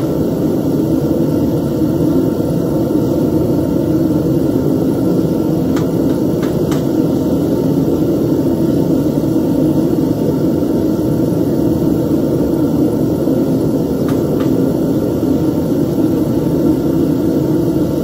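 Homemade foundry furnace's side-mounted gas burner running steadily, a low, even rushing noise, while metal melts in the crucible. A few faint clicks come about six seconds in and again near fourteen seconds.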